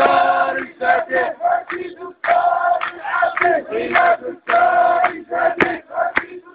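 A crowd of protesters chanting slogans in unison, in repeated phrases with short breaks between them.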